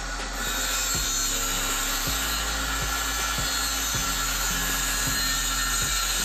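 Cordless circular saw ripping a narrow strip off a plywood board along a rip-cut guide, a steady cutting whine that gets louder just after the start as the blade bites into the wood. Background music plays underneath.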